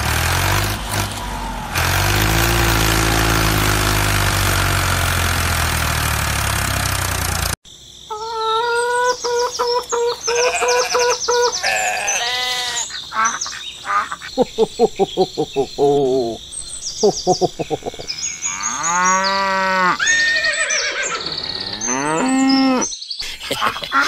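A steady rough motor drone with a low hum, cutting off abruptly about seven and a half seconds in. It is followed by a string of farm-animal calls: several longer calls that rise and fall in pitch, mixed with short chirps and quick runs of squeaks.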